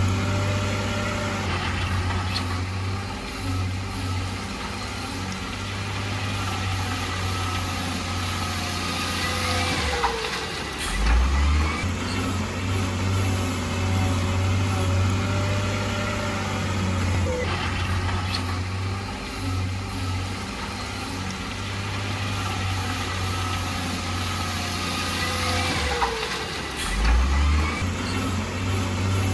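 Heavy diesel construction machinery running steadily, a deep continuous engine drone. Brief whines glide up and down about ten seconds in and again near the end.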